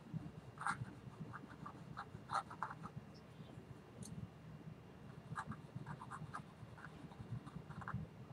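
Oil paint being worked onto a stretched canvas: short, dry scratching strokes, singly and in small clusters at irregular intervals, over a low room hum.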